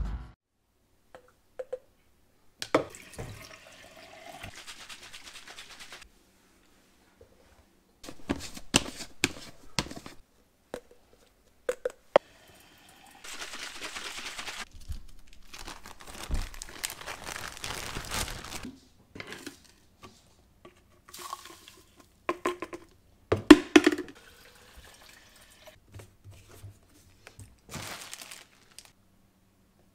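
Intermittent knocks and clicks with stretches of running or splashing water, in a small room.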